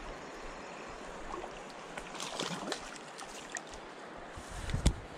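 Creek water flowing steadily over rocks, with a few faint clicks midway and a sharp thump near the end.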